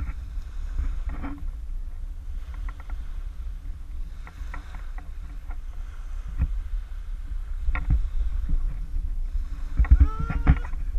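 Wind buffeting an action camera's microphone as a steady low rumble, with scattered light clicks and taps, and a few short gliding tones near the end.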